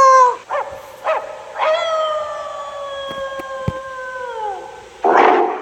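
A dog howling: a long howl trails off, two short yips follow, then a second long howl held about three seconds that slides down in pitch at its end. Near the end come two short gruff barks.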